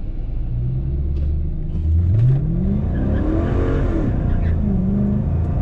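2016 Dodge Charger R/T's 5.7-litre Hemi V8 heard from inside the cabin, running steadily at low revs, then launched at full throttle about two seconds in for a 0–100 km/h run. The revs rise, and the pitch dips and climbs again as the 8-speed automatic changes gear in the second half.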